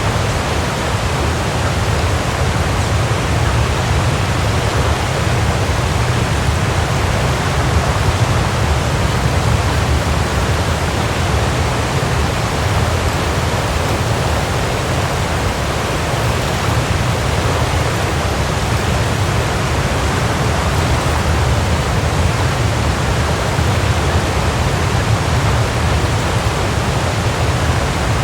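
Waterfall: water falling and crashing in a steady, loud rush with a deep rumble underneath.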